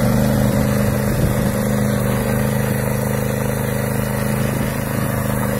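BCS Ferrari walk-behind tractor's engine running steadily under load, driving a rotary tiller attachment through soil and grass.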